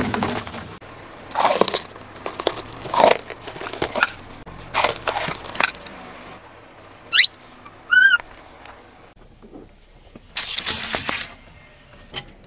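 Plastic hair rollers cracking and crunching under a car tyre: four sharp crunches in the first five seconds. Two short high squeaks follow about seven and eight seconds in, then another burst of crushing noise near the end.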